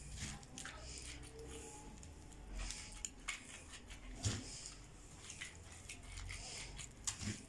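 Faint wet squishing and rustling as raw rice stuffing is pushed by hand through a funnel into a mumbar casing, with a few soft taps of fingers on the funnel.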